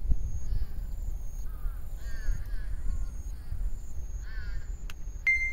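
Crows cawing several times, in short calls, over a steady low rumble of wind on the microphone. A sharp, steady high tone starts near the end.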